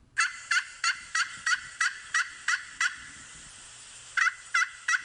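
Turkey calls: a run of short, sharp calls about three a second, a pause of about a second near the middle, then the run starting again.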